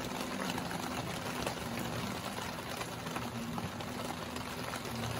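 Steady bubbling hiss of a pot of rice boiling, with a faint low hum under it.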